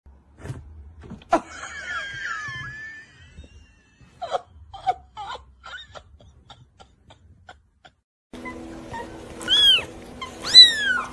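A cat meowing twice near the end: two loud, high calls that fall in pitch, the second the louder.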